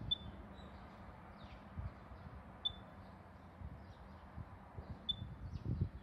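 Handheld external tester for an automatic fire alarm system, plugged into the door intercom, giving a short high electronic beep about every two and a half seconds while it runs the detector-count test. Faint high chirps and a low rumble sit underneath.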